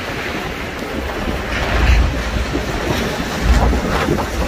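Wind buffeting the microphone over the steady wash of sea waves, with strong low gusts about two seconds in and again about three and a half seconds in.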